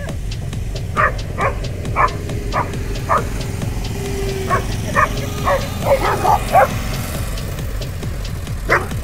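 A dog yapping in a playful run of about a dozen short, sharp barks, closest together around six seconds in and stopping about a second later, over a steady low rumble.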